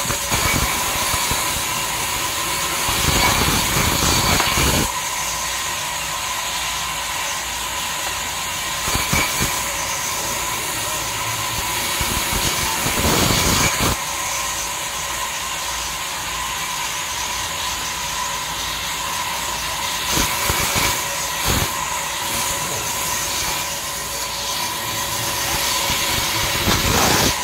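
Belt-driven band saw running with a steady whine, its blade cutting a crooked jackfruit-wood plank; the noise grows louder and rougher several times as the wood is pushed through the blade.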